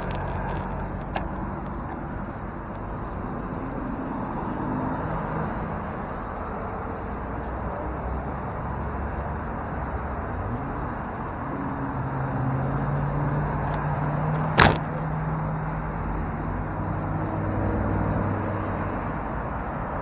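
Motor traffic passing, with engine hum swelling for a few seconds past the middle, over a steady rush of wind and road noise. A single sharp click sounds about fifteen seconds in.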